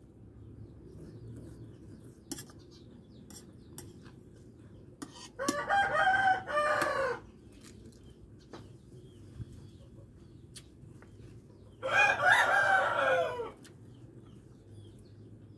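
A rooster crowing twice, each crow about two seconds long, the second about six seconds after the first.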